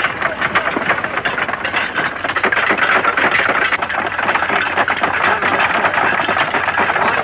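A crowd of men scrambling onto benches at mess tables: a dense, noisy commotion full of many small knocks and clatters.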